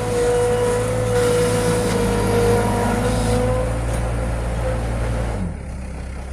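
Digger's engine running steadily under a high, steady whine; the sound drops briefly about five and a half seconds in.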